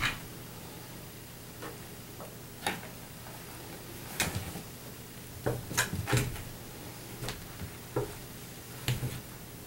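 A cat batting at a rope under a closed door: irregular knocks and thuds of its paws against the door and the floor, about a dozen in all, with a quick cluster in the middle.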